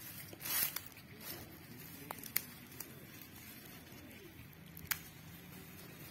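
Dry grass and leaves rustling as a hand picks plants from the ground, with a louder rustle just after the start and a few brief sharp clicks later on.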